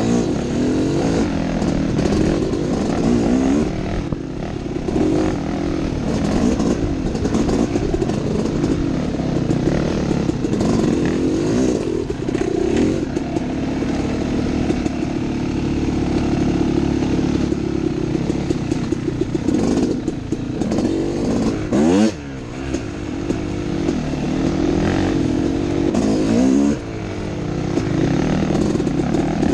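Dirt bike engine under way, its pitch rising and falling as the throttle is worked. About three-quarters of the way through there is a quick rev up and back down, followed by a brief drop in level.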